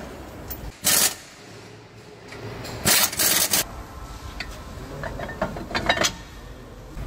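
Two short blasts of compressed air from a blow gun, about a second in and again around three seconds in, clearing dust off a freshly resurfaced brake disc, followed by a run of light metallic clicks and knocks.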